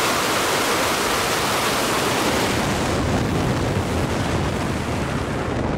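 Wind rushing and buffeting over the microphone in flight, a steady loud hiss with an irregular low rumble. The highest part of the hiss eases after about three seconds.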